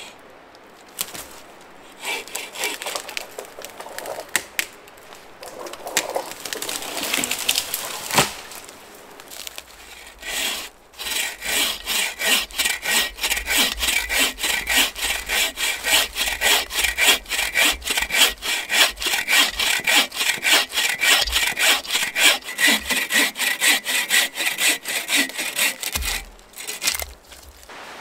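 Hand bow saw cutting firewood from a log, the blade rasping back and forth through the wood. Uneven strokes come first, then a short pause about ten seconds in, then a long run of fast, even push-pull strokes. A low thump sounds near the end.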